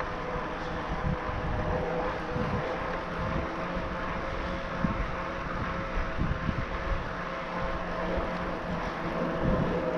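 Riding noise of an e-mountain bike with a Bosch Performance Line drive: wind rushing and buffeting on the microphone over a steady hum from the drive and tyres.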